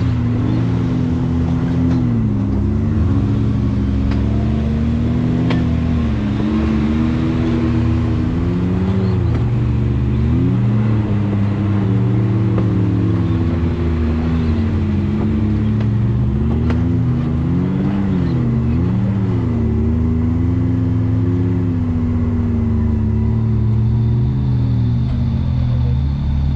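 Side-by-side UTV engine running under load on a trail, its pitch rising and falling again and again as the throttle is worked.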